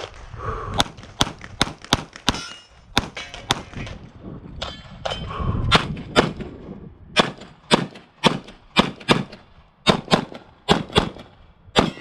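A string of pistol shots fired in quick succession, several to a second, with short pauses between strings, and steel targets ringing as they are hit.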